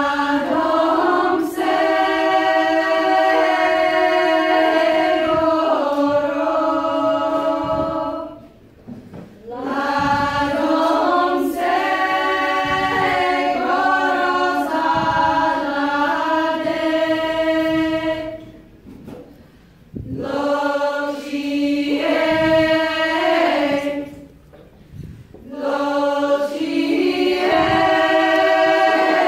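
Women's folk choir singing a Bulgarian folk song a cappella, several voices together in long held phrases with short pauses between them.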